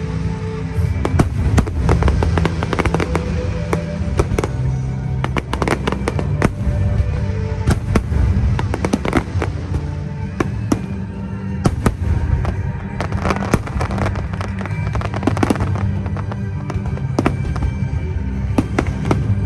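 Fireworks bursting and crackling in rapid, dense succession, with music playing loudly underneath.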